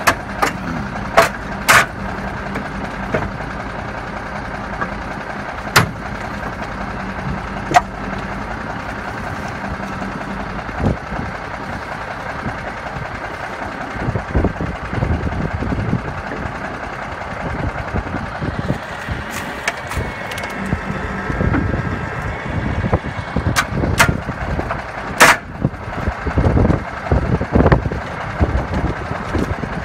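Heavy truck engines idling steadily, with sharp metallic knocks now and then: several in the first eight seconds and a few more later. In the second half the low rumble comes in uneven surges.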